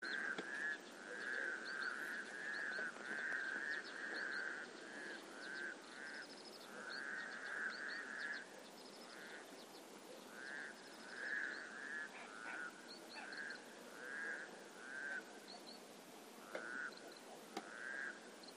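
Frogs croaking in a long series of short rippling calls, almost continuous for the first half and more spaced out later, with faint high bird chirps above them.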